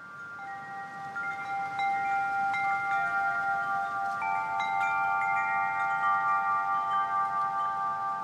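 Background music of ringing chime tones: single bell-like notes struck one after another and left ringing, piling up over each other. The notes grow louder over the first couple of seconds, then hold steady.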